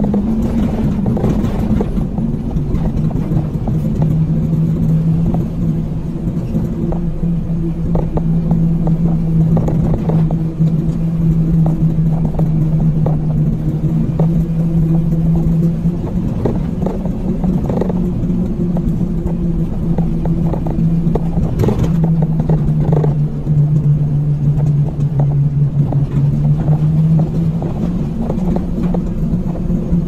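A road vehicle's engine running steadily while driving, over low road and wind rumble. The engine note drops a few seconds in and rises again near the end.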